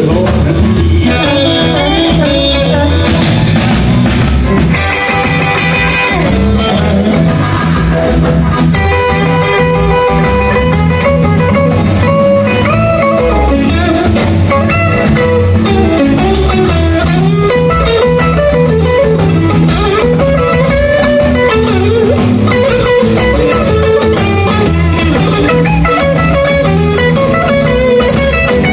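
Blues band playing live: an electric guitar solo with bent notes over bass guitar and drums. A harmonica joins in over the first few seconds.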